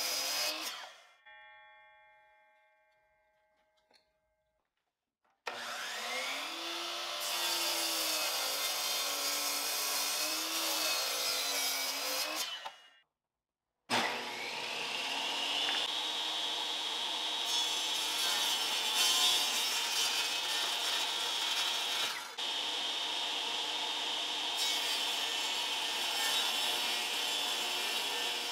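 A DeWalt miter saw finishes a cut through a wooden block, and its sound dies away as a fading ring. After a silence, a power saw runs for about seven seconds with a wavering hum. After a brief gap, a table saw starts up, its whine rising as the blade comes up to speed, and then runs steadily while a small wooden block is fed toward the blade near the end.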